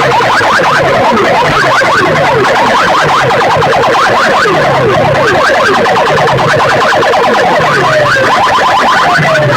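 Heavily amplified DJ sound-system speakers blasting a competition track: fast siren-like sweeping electronic tones over a pulsing bass that repeats a little faster than once a second, loud and distorted.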